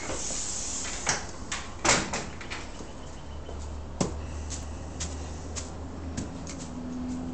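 A scatter of sharp knocks and clicks, the loudest about one and two seconds in and another about four seconds in, like a door or latch being worked.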